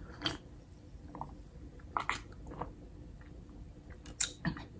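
Close-miked mouth sounds of drinking from a cup: sips and swallows with a few short, wet lip smacks and clicks.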